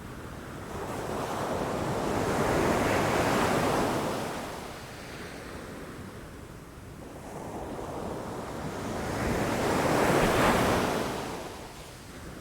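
Ocean waves breaking against rocks, two swells of surf about seven seconds apart, each rising to a rush and washing back, over a steady low rumble of the sea.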